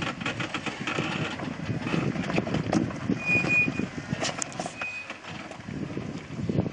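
Jeep Wrangler TJ crawling slowly down a steep rock ledge: the engine runs low while the tyres grind and crunch over rock and loose gravel, with a couple of brief high squeaks around the middle.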